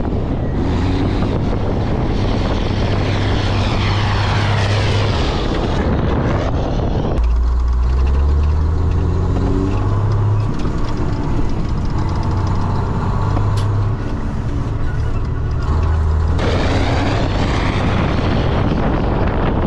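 Ford cabover semi-truck's diesel engine pulling on the road. For the first several seconds and the last few it is heard from outside along with wind on the microphone. In the middle it is heard from inside the cab, the engine note rising as the truck accelerates and dropping back twice at gear changes.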